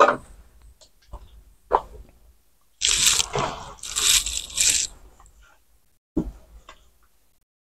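Paper tissue handled and crumpled: a few light clicks, then about two seconds of loud crinkling and rustling, and a single soft knock near the end.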